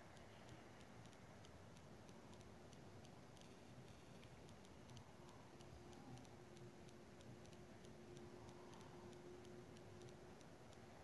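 Near silence: faint room tone with light ticking, evenly spaced, a few ticks a second.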